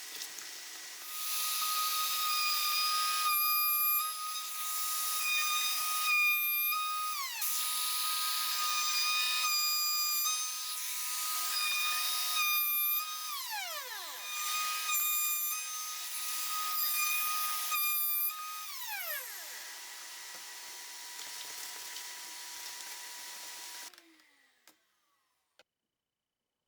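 High-speed trim router running with a steady high whine. The sound dips briefly every few seconds, and its pitch falls away several times, then it cuts off abruptly near the end.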